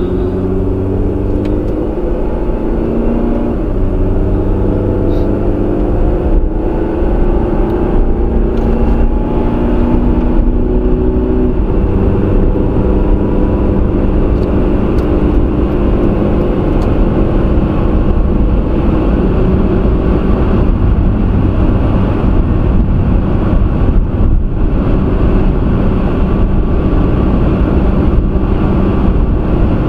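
Car accelerating up to highway speed, its engine pitch climbing and stepping through gear changes over the first dozen seconds, then steady engine and tyre noise at cruising speed, heard from inside the cabin.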